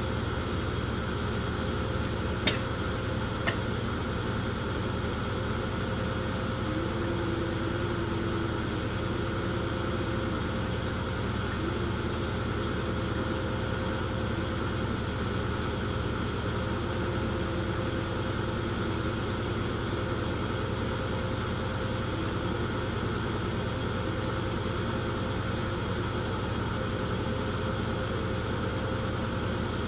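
Steady mechanical hum of the shaking rig vibrating a plastic tub of sand, running without a break. Two sharp clicks about two and a half and three and a half seconds in.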